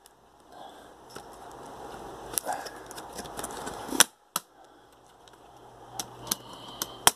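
Plastic hinge-cover bezel of a Dell Latitude D630 laptop being pried up with a flat screwdriver: scraping and rubbing with several sharp clicks as its clips let go, the loudest about four seconds in.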